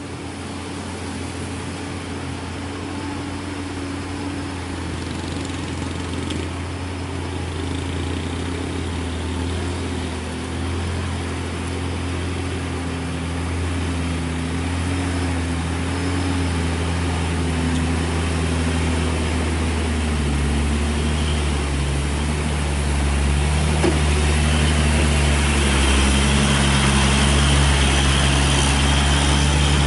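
Heavy diesel engine of a loaded Hino cargo truck running low and steady at slow speed, growing steadily louder as the truck comes close.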